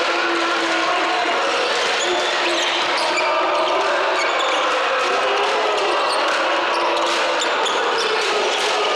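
Basketball being dribbled on a hardwood gym court during a game, under a steady din of many voices calling and cheering, echoing in the large hall.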